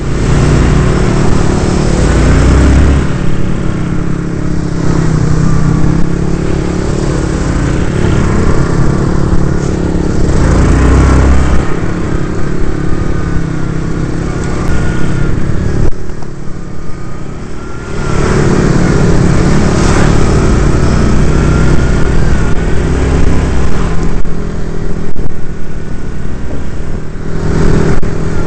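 ATV (quad bike) engine running under way, revving up and easing off by turns as it is ridden along a muddy dirt track, with a brief let-off of the throttle a little past the middle.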